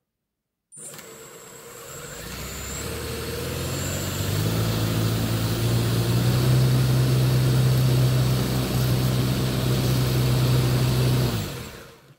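Cyclorotor driven by a 2008 1250kv brushless motor through a 6:1 GT2 belt, spinning up over a few seconds to a steady low hum with a rush of air from the blades, then winding down near the end.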